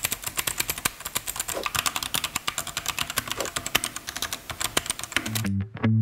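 Mechanical keyboard being typed on quickly, a dense, even run of sharp key-switch clicks and clacks at several strokes a second. Music comes in near the end.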